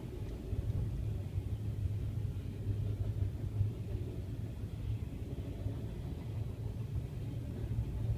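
CSX freight train's cars rolling through a grade crossing: a steady low rumble, heard from inside a car waiting at the gate.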